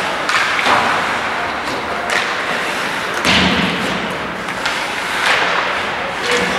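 Ice hockey play: scattered sharp clacks of sticks and puck, with a heavier thump about three seconds in.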